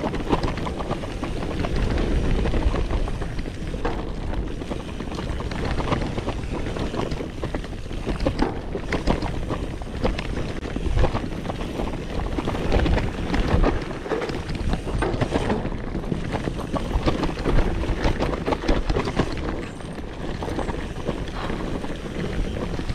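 Mountain bike descending a downhill trail: continuous tyre noise and dense, irregular rattling and knocking as the bike runs over rough ground, with wind buffeting the microphone.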